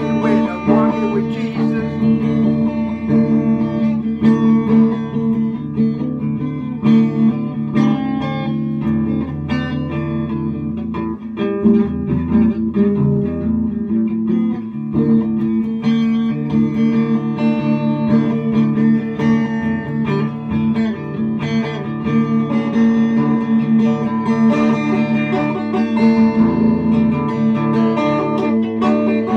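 Electric guitar playing an instrumental passage: picked notes changing over steady held low tones.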